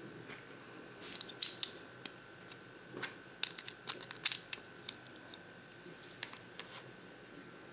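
Plastic Lego bricks clicking and snapping as pieces are handled and pressed onto a small brick-built model, with a quick run of sharp clicks from about a second in until past the middle.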